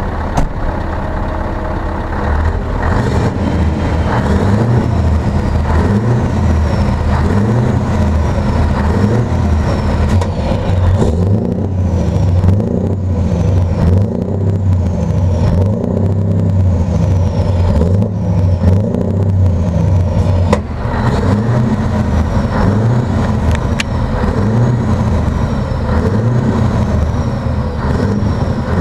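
Scania V8 truck engine breathing through TruckMax side-pipe exhausts with a diverter valve, revved up and down over and over while standing. A faint high whistle falls in pitch after many of the revs.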